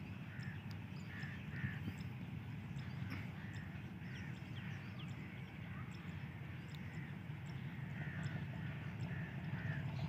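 Birds calling in short clusters of harsh calls, over the low, steady rumble of an approaching diesel locomotive that grows a little louder near the end.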